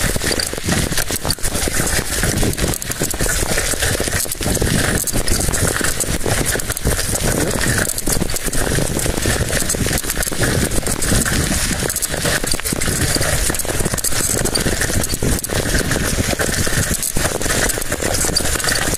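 Bicycle rattling and jolting over a rough road, with wind buffeting the microphone as it rides.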